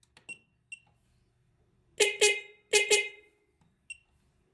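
Electric car horn sounding four short blasts in two quick pairs, about two seconds in and again under a second later, each tailing off briefly. A few faint clicks come before and after.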